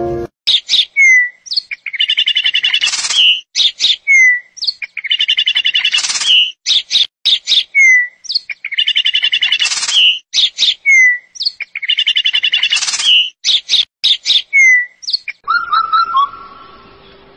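Bird chirping in a repeated phrase of chirps, a trill and a short falling whistle, the same phrase coming round about every three seconds, four times. About fifteen seconds in it gives way to a few fainter short whistles.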